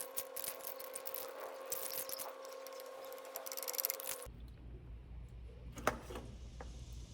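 Rapid small clicks and rustling from hand work with tools and parts, over a faint steady hum, for about four seconds. It stops abruptly, leaving only a few separate clicks.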